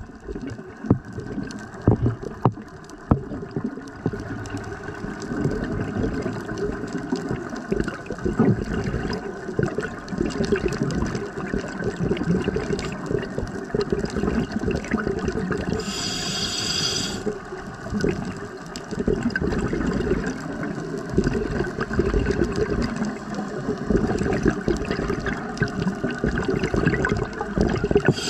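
A scuba diver's breathing heard underwater: exhaled bubbles from the regulator rumbling and gurgling, with one short hissing inhalation through the regulator about halfway through.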